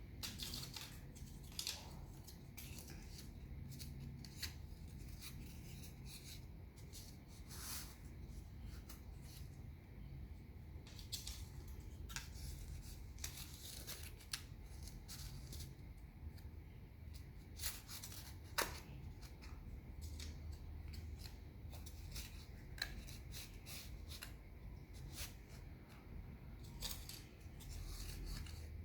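Wooden popsicle sticks clicking and scraping against each other as they are handled and woven together, in irregular sharp clicks over a low steady hum.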